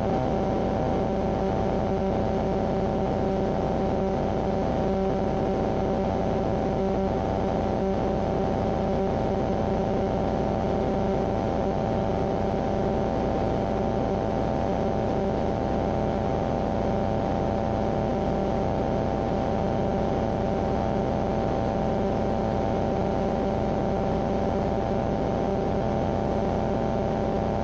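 Flight Design CTSW light aircraft's Rotax 912 engine and propeller heard from inside the cockpit, a steady unbroken drone with a constant droning note, climbing out just after takeoff.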